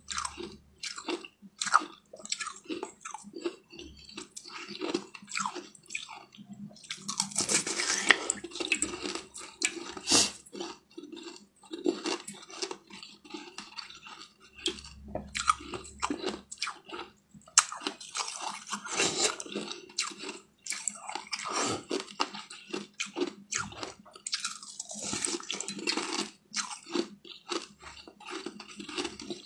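Biting and crunching through chunks of ice close to the mouth, with chewing in between: sharp, irregular cracks throughout, busiest about a quarter of the way in and again near the end.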